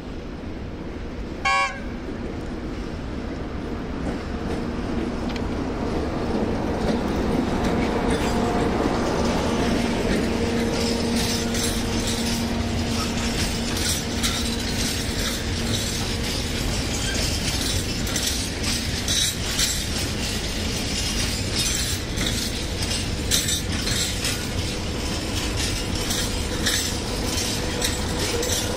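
A freight train rolling through, led by a CFR 060-DA diesel-electric locomotive. A short horn toot comes near the start, then the locomotive's diesel engine drone grows as it approaches and passes. Open freight wagons follow, their wheels clicking over the rail joints, and near the end a second diesel locomotive in the train, a 040-DHC diesel-hydraulic, comes by with its own engine tone.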